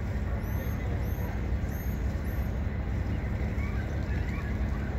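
Boat engine idling with a steady low rumble, and four short, high chirps of a bird in the first half.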